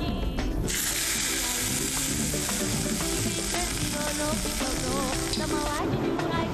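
Incense grains sizzling on hot charcoal in a ceramic burner: a steady hiss that starts suddenly about a second in and cuts off near the end, over background music.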